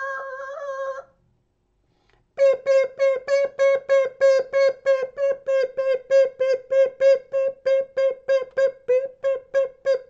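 A man's vocal impression of a UK pelican crossing signal. There is a held beep-like tone for about a second, then a pause, then rapid repeated beeps at one steady pitch, about three a second. The beeping is the signal that the green man is showing and it is safe to cross.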